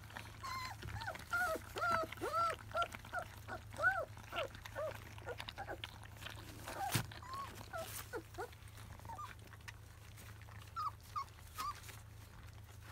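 Labrador retriever puppies, about 25 days old, whimpering: a rapid string of short high squeaks, each rising and falling in pitch, as they jostle at a shared food dish. The squeaks thin out after about five seconds, with a sharp knock about seven seconds in and three more squeaks near the end.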